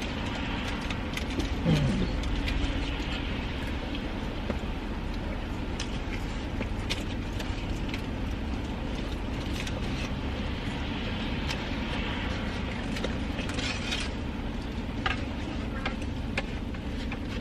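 Steady low rumble of a car interior with the engine running, under scattered small clicks and rustles of someone eating buffalo chicken wings.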